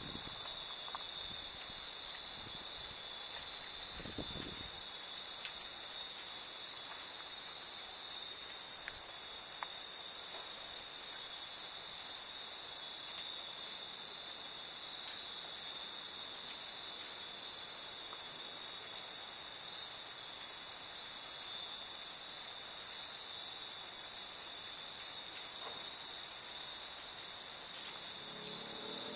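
Dense, steady chorus of summer insects shrilling without a break, with a few faint, brief tinkles of glass wind chimes (furin) scattered through it. A short low rumble comes about four seconds in.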